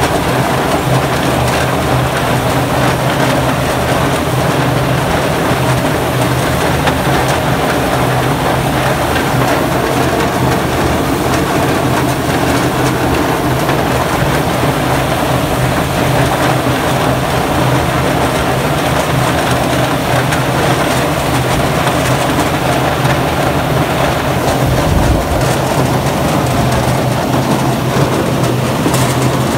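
Golf ball washing machine running: water jets spraying over a tub full of golf balls as they churn, over a steady low hum from the machine.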